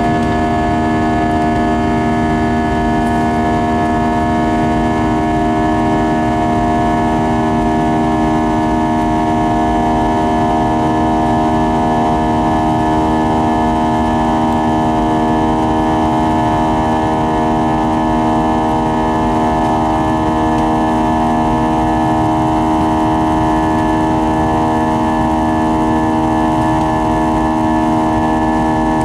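IAE V2500 turbofan of an Airbus A320 at climb power, heard from inside the cabin beside the engine: a steady buzzsaw drone, a chord of many fixed tones over a rush of air, produced by the fan blade tips running supersonic.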